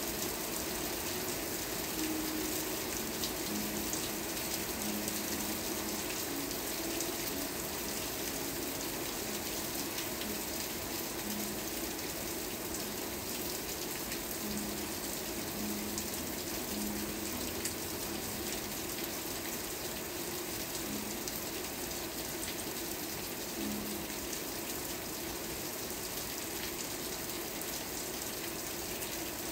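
Steady rain falling: an even hiss with scattered individual drop ticks.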